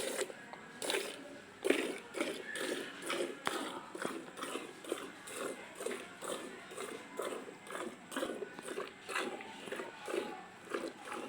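Cow being milked by hand: streams of milk squirting into a bucket in a steady rhythm, about two squirts a second.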